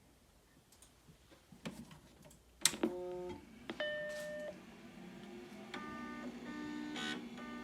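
Macintosh SE FDHD powering on: a switch click, then electronic tones from its internal speaker, first a brief cluster and a single steady beep, then a run of short repeating notes. The machine does not boot to the screen, so the notes after the beep are plausibly its startup error chime signalling a hardware fault.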